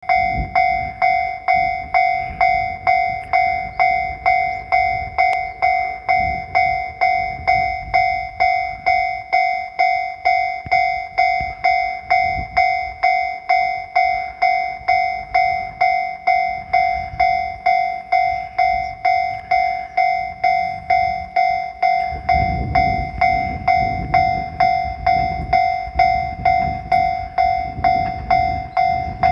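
Japanese level-crossing alarm ringing steadily at about two dings a second. The low rumble of an approaching Shinano Railway 115-series electric train rises under it from about 22 seconds in.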